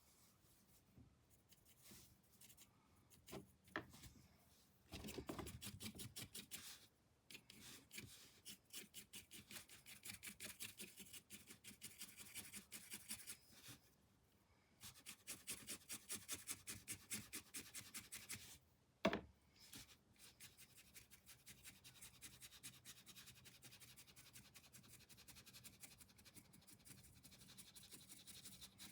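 Paintbrush scrubbing back and forth on canvas in quick, faint repeated strokes, with one sharp knock about two-thirds of the way through.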